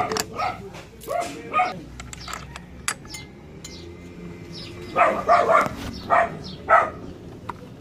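A dog barking in short bursts, a few near the start and a quicker run of about five barks about five seconds in, with light metallic clicks and taps of scooter variator parts being handled.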